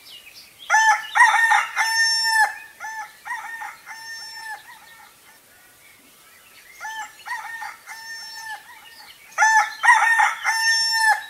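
Rooster crowing: a loud cock-a-doodle-doo about a second in and another near the end, with fainter crows between them.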